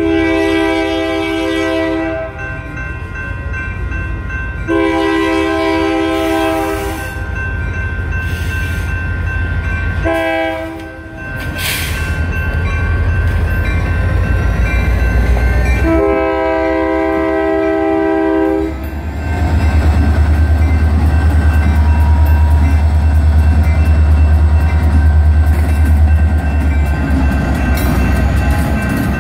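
A Union Pacific diesel freight locomotive's horn sounds the grade-crossing signal, long, long, short, long, over the steady ringing of electronic railroad crossing bells. Near the two-thirds mark the low running of the two EMD diesel locomotives, a GP40-2 and a GP60, grows loud as they pass through the crossing.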